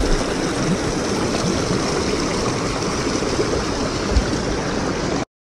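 Shallow river water rushing and splashing over rocks close to the microphone, a loud, steady noise that cuts off abruptly near the end.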